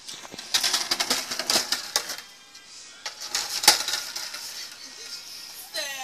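Skateboard clattering across paving tiles, its wheels knocking over the joints, with a sharp slap of the board hitting the ground about three and a half seconds in. A child's shout starts near the end.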